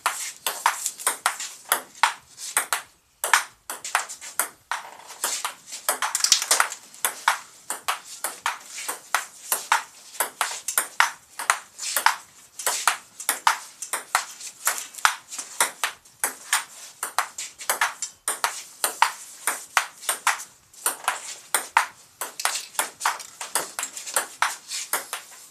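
Table tennis rally: the celluloid ball clicking back and forth off paddles and table in quick, irregular succession, with a couple of brief breaks between points.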